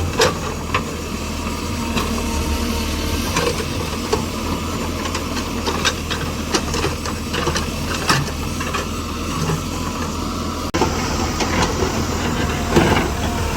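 Heavy tractor engine running steadily while it cuts a road into a hillside, with scattered sharp clanks and knocks over the low drone.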